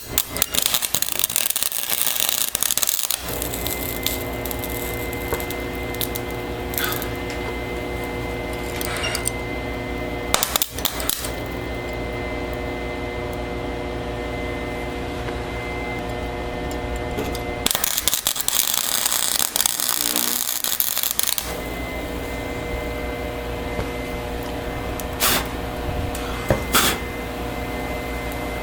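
MIG welder arc crackling and sizzling in three bursts, a longer one at the start, a short one about ten seconds in and another of about four seconds a little past the middle, as a nut is welded onto a sheared-off rusty bolt stud. A steady machine hum runs underneath, and a couple of sharp metallic clicks come near the end.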